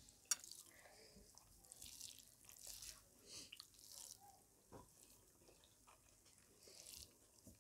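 Faint eating sounds: fingers mixing rice and curry on a plate and quiet chewing, with scattered soft clicks.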